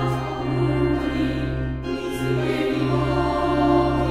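Background music: a choir singing long held, chant-like notes over a steady low bass.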